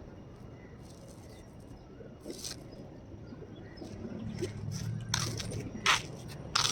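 Outdoor ambience: a steady low rumble that grows louder about four seconds in, with a few short sharp scuffs or clicks near the middle and toward the end.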